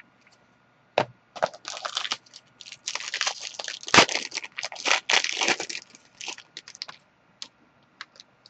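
Plastic card-pack wrapper being torn open and crinkled in the hands, a dense run of crackling with sharp snaps, the loudest about four seconds in, dying away near the end.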